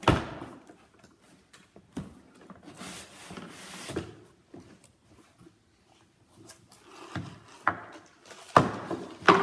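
Chromebook charger and cables being handled and unpacked from their packaging: a sharp knock at the start, another knock about two seconds in followed by a second or so of rustling, then a few clicks and knocks near the end.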